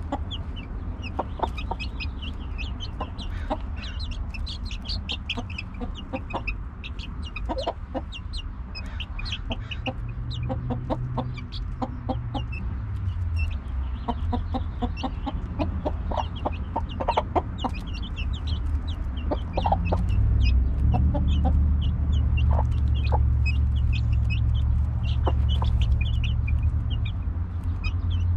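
A hen and her chicks clucking and peeping over a pile of mealworms and feed crumbles, with many short high peeps and scattered sharp pecking taps. A low rumble underneath grows louder about two-thirds of the way through.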